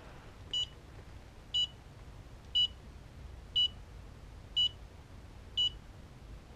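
Brownline digital torque angle gauge beeping once a second, each a short high beep, while a connecting-rod bolt is angle-tightened toward 105 degrees.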